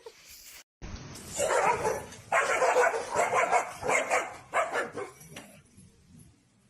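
A dog barking: a run of short barks and yips, about two a second, starting about a second in and stopping near the end.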